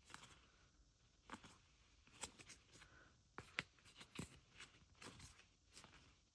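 Faint, irregular clicks and light rustles of a stack of trading cards being handled and flipped through.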